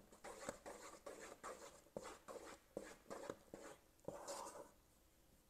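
Faint scraping and knocking of a wooden spoon stirring sticky, almost-melted marshmallow in a metal pot, about two strokes a second.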